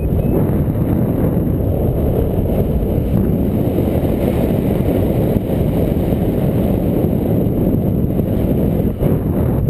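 Wind rushing over the camera's microphone during a paraglider flight in strong wind: a steady, loud, low rumble.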